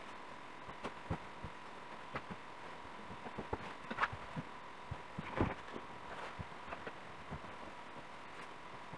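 Pillows being handled and dropped onto a bed: soft, irregular thumps and fabric rustling, busiest about four and five and a half seconds in, over a faint steady tone.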